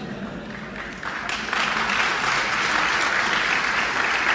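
Audience applauding: it swells about a second in and then holds steady.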